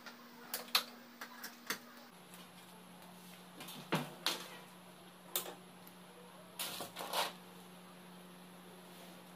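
Scattered clicks and knocks of hands working the amplifier's controls as it is switched on and its display lights up. A faint steady hum shifts lower about two seconds in.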